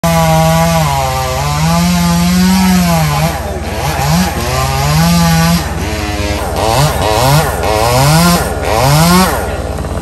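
Stihl MS 462 two-stroke chainsaw running loud, its engine speed rising and falling again and again. In the last few seconds it gives several quick revs before dropping back.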